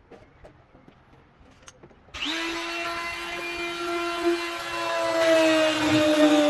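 A few light taps and clicks, then a handheld electric power tool's motor starts suddenly about two seconds in and runs at a steady high speed with a constant whine, working wood for a door hinge.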